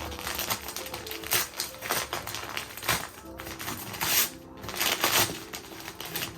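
Wrapping paper on a gift being torn and crinkled in irregular rustling bursts, over faint background music.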